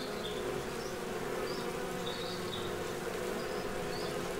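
A swarm of honeybees clustered on a branch, humming steadily.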